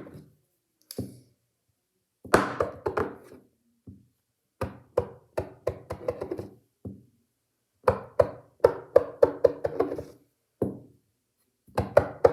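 Plastic fidget toy knocking and clattering against a hard surface as it tumbles, in several bursts of quick taps.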